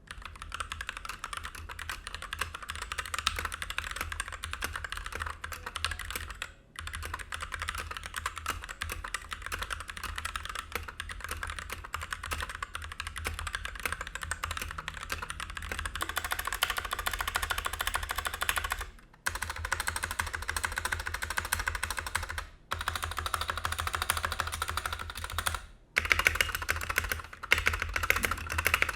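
Ajazz K870T mechanical keyboard with Huano red linear switches in a steel plate and ABS keycaps, typed on quickly and continuously. The typing stops four times, each pause under a second.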